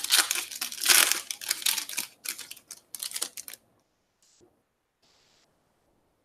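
Foil wrapper of a trading-card pack crinkling and tearing as it is ripped open and handled: a fast run of crackles that stops about three and a half seconds in, followed by near silence.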